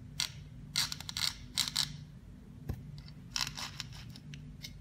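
A flat metal file scraping in short strokes along the edge of an aluminium brush-strip channel, deburring the sharp edge that hooks the brush filament.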